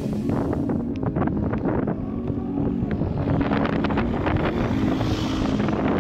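Wind buffeting an action camera's microphone while riding, a steady loud rumble with rough crackling.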